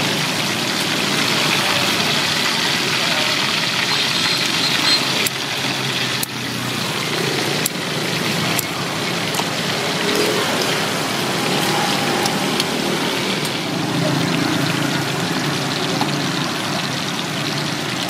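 Quail pieces deep-frying in butter and oil in a metal wok: a steady, dense sizzle and bubbling, with a few sharp clicks of scissors and tongs against the pan about five to nine seconds in. Street traffic runs underneath.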